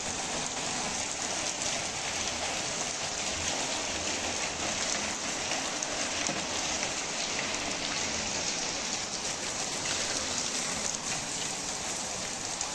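Heavy rain falling on standing water over a paved courtyard, a steady, even hiss of drops splashing.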